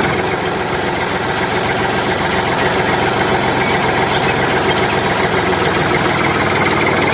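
Tractor engine sound effect running steadily at idle, an even engine note with no change in pitch.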